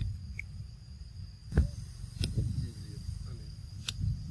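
Steady high-pitched insect drone over a low rumble, broken by three sharp clicks, the loudest about a second and a half in.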